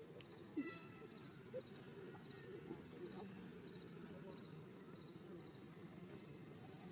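Faint insects, a soft evenly repeating pulse over low steady background noise, with one brief squeak about half a second in.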